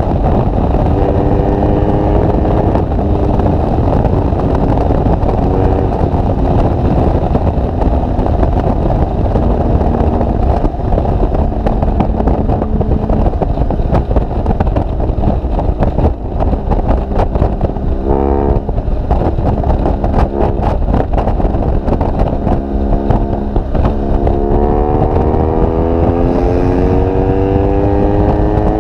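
BMW R1200GS Adventure's boxer twin running through an SC Project GP aftermarket exhaust at highway speed, under heavy wind noise. The engine note climbs steadily near the end as the bike accelerates.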